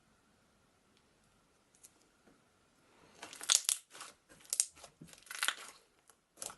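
Slime being squeezed and pressed by hand, giving several short crackly, crinkling bursts that start about three seconds in.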